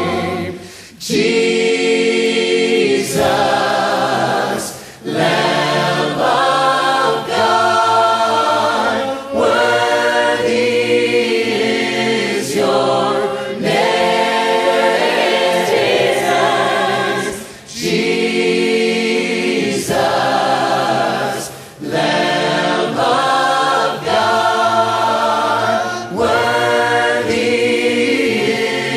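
Background music: a choir singing, in phrases of about four seconds with brief breaks between them.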